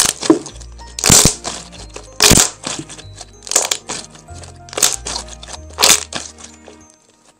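Glossy white-glue milk slime squeezed and stretched in the hands, giving six loud crackling, popping squelches about once a second. Background music plays beneath and stops shortly before the end.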